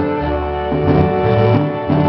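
Marimba ensemble playing dance music: sustained melody notes over a deep bass line.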